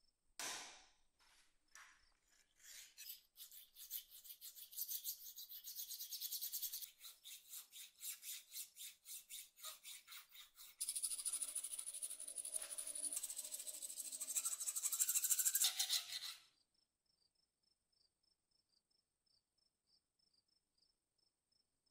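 Steel hand file rasping across a small blued steel piece clamped in a bench vise. A single knock comes first, then evenly repeated filing strokes a few per second. Past the middle it turns louder and more continuous with a squeal, then stops abruptly. Afterwards only faint, regular cricket chirps remain.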